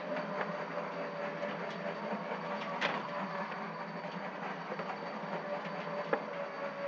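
Homemade trommel soil sifter running: its barrel drum turns on a direct-drive 12-volt DC motor with dirt tumbling inside. A steady hum and even noise run throughout, with a few sharp knocks.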